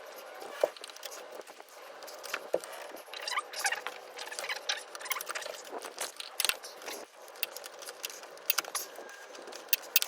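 Small steel parts and a chain tool clinking and ticking against a motorcycle drive chain as it is handled, in irregular sharp clicks with a few louder knocks.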